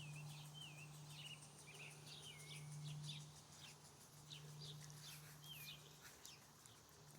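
Faint birds chirping: many short chirps and little curved whistled notes, over a low steady hum.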